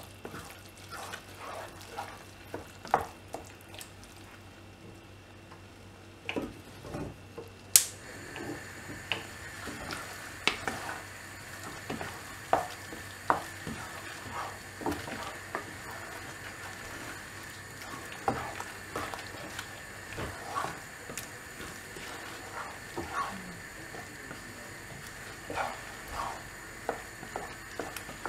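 A wooden spatula stirring and scraping in a nonstick saucepan, mixing eggs into a frying radish mixture, with irregular knocks and scrapes over the food sizzling.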